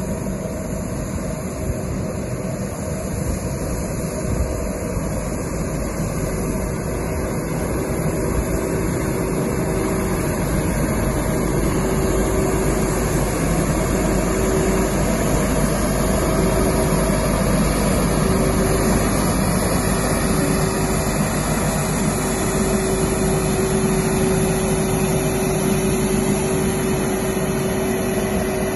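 Diesel engine of a 2015 DAF LF220 sweeper truck running as the truck drives up and comes close, growing gradually louder. A steady whine sits over the engine.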